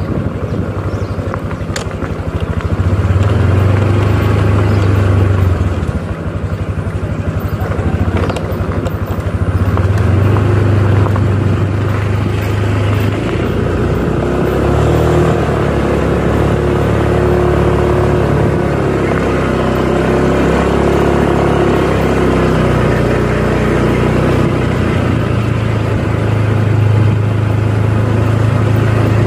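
Motorcycle engine running while riding along, its note rising and falling with the throttle.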